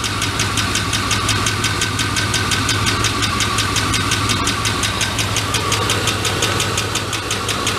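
GMT400 pickup engine idling with a steady, rapid ticking from the valve train, about six ticks a second. It is a lifter tick, and the engine is missing on one cylinder. The owner blames a worn cam lobe and lifter on the number 3 intake valve, after long cranking on stale fuel.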